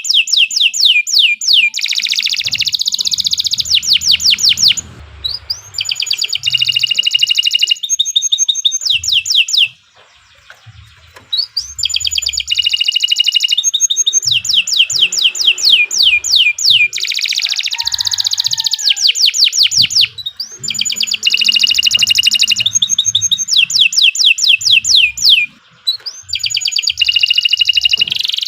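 Domestic canary singing a long, continuous song: loud phrases of rapid repeated notes and rolling trills, with brief pauses between phrases.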